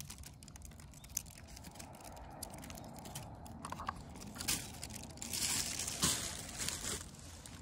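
Cats crunching dry kibble: a run of small crisp crunches, with rustling near the middle and toward the end as a cat brushes close past the microphone.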